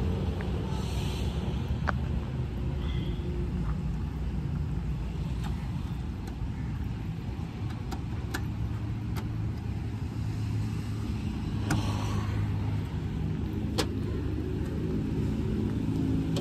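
Mahindra Bolero's engine idling steadily, with a few light clicks over it.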